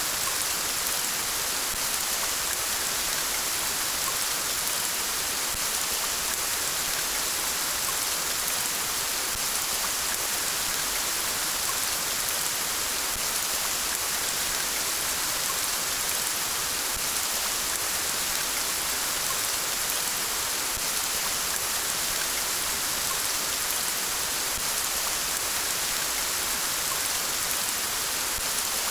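Steady rain falling, an even, unbroken hiss with no pauses or changes.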